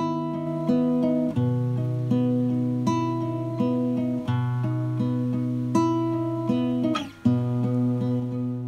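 Background music: acoustic guitar picked in a steady pattern of ringing chords that change every few seconds, with a short break about seven seconds in.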